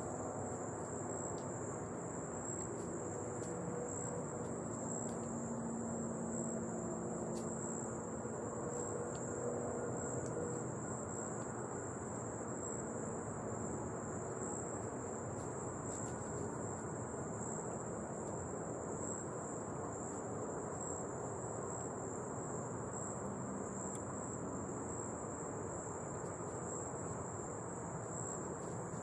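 Steady, high-pitched insect chorus holding one constant pitch, over a soft low background rush.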